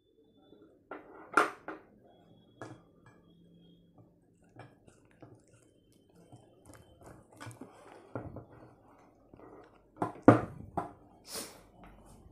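Handling of an angle grinder while its wheel guard and side handle are fitted: scattered clicks and knocks of plastic and metal parts. There are sharp knocks about a second and a half in and a cluster of louder ones near the end.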